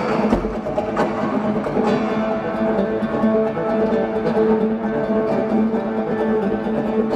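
Two acoustic guitars played live together: sustained plucked melody notes over fast strumming, with several sharp percussive hits on the strings and body.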